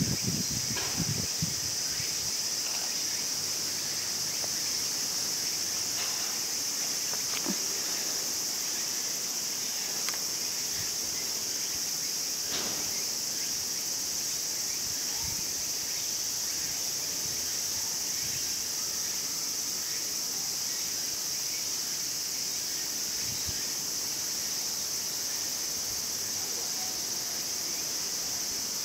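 Steady high-pitched chorus of insects droning without a break, with a few faint knocks and rustles.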